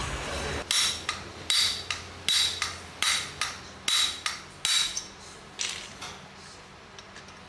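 Hammer-like knocks on metal: about a dozen sharp, ringing strikes, often in quick pairs, over about five seconds, then they stop.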